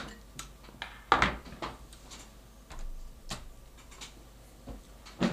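Handling noise: a series of light knocks and clicks, about half a dozen spread out, the loudest about a second in, as a small quadcopter is put down and another picked up.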